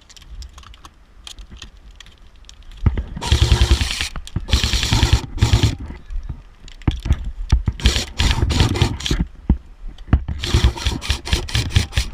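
Battery-powered airsoft guns firing full-auto: several bursts of rapid clicking shots, starting about three seconds in, with the last burst near the end.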